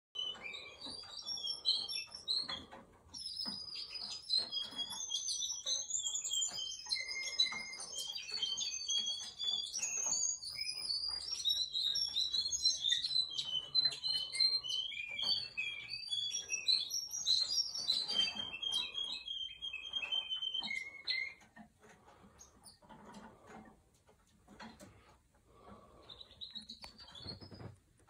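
Russian-type domestic canary singing a long, continuous song of rapid trills and chirps that breaks off after about twenty seconds; a short phrase returns near the end.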